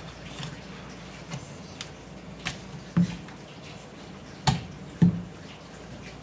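Knocks on a wooden cutting board as a whole olive flounder is handled and cut behind the head with a kitchen knife: a few light taps, then three sharp, loud knocks about three, four and a half and five seconds in.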